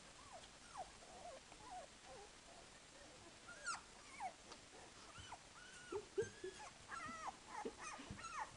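Twelve-day-old Dalmatian puppies squeaking and whimpering: short, high squeals that rise and fall in pitch. They come more often and louder from about halfway through.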